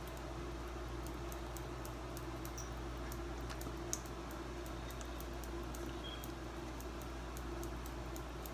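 Plastic squeeze bottle of barbecue sauce being squeezed over ribs in a foil pan: faint irregular clicks and squelches, with one sharper click about four seconds in, over a steady low hum.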